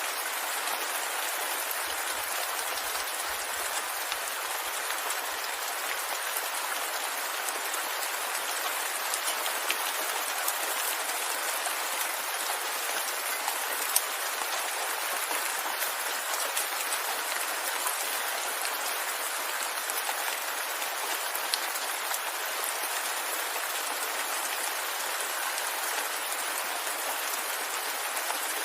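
Steady rainfall: an even hiss of rain with scattered drops ticking, unchanging throughout.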